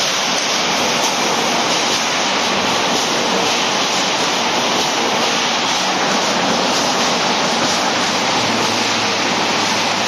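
Steady, loud rushing noise of factory machinery running, without distinct cuts or knocks.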